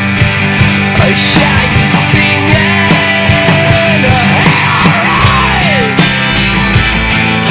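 Rock band playing an instrumental passage: drums and bass keep a steady beat under a lead line that slides up and down in pitch, with one long rising and falling glide a little past the middle.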